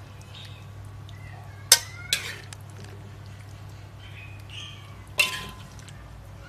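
A spatula knocking against an aluminium wok and a glass serving bowl while stew is scooped out: three sharp clinks, two close together about two seconds in and one about five seconds in, each with a short ring. A steady low hum runs underneath.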